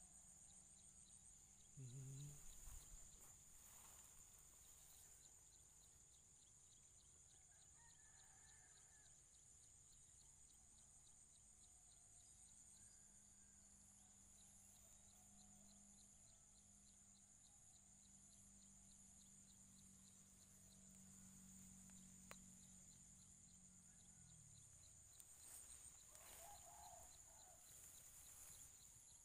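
Faint night insects trilling steadily in a high, fast-pulsing chorus, with a brief low sound about two seconds in and a faint low hum in the middle.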